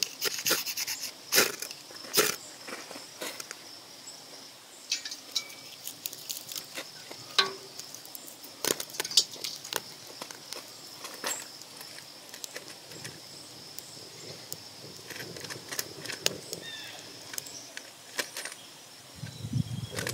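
Dry leaves and twigs crackling and snapping as they are handled and set alight in a metal fire bowl, in sharp irregular clicks, thickest in the first few seconds. A steady high insect buzz runs behind them for the first half.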